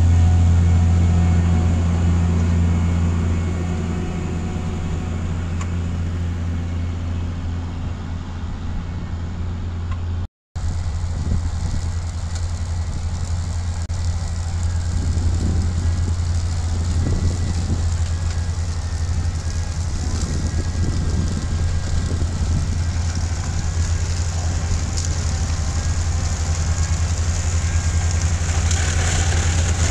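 Heavy diesel engine of a self-propelled sugar beet harvester running steadily under load, a deep, constant drone with machinery clatter over it. The sound drops out for a moment about ten seconds in.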